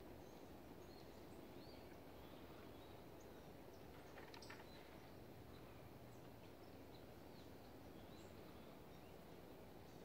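Faint outdoor ambience, close to silence: a steady low hiss of wind and handling with scattered short, high bird chirps from small birds in the distance. A few light clicks about four seconds in.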